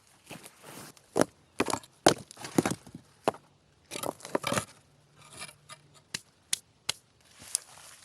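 Dry dead branches being broken up: a run of sharp, irregular snaps and cracks of dead wood.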